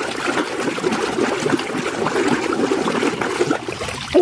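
Water running and splashing steadily over a muddy toy race car as it is washed clean.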